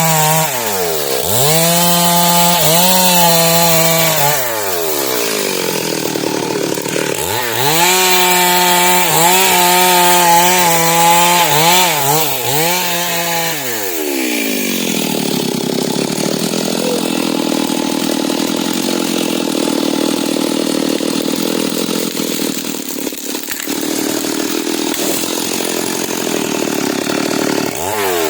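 Two-stroke chainsaw cutting a small tree, revved hard and dropping back several times, with a short dip to a lower speed after about four seconds. About halfway through the revving falls away, and the saw runs on at a lower, steadier sound until it picks up again at the end.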